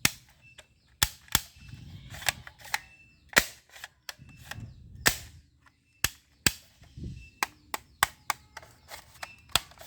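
Toy airsoft Beretta M92-style pistol firing: about a dozen sharp snapping shots at uneven intervals, some in quick pairs.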